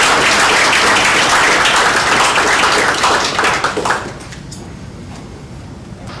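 Audience applauding, dying away about four seconds in to low room noise.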